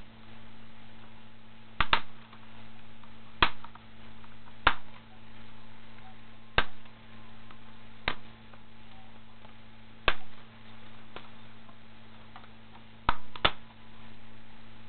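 Plastic snap clips of a Gateway MS2285 laptop's screen bezel popping loose one after another as a flathead screwdriver pries the bezel away from the lid. About nine sharp snaps come a second or two apart, two of them in quick pairs, over a steady low hum.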